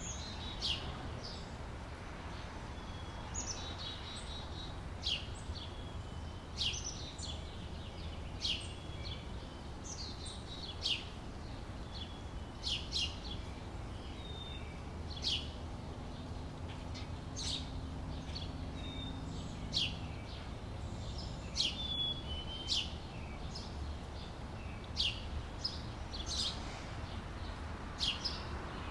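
Outdoor summer ambience: small birds chirping, a short falling chirp every second or two, over a steady low background rumble. A faint low hum passes through about midway.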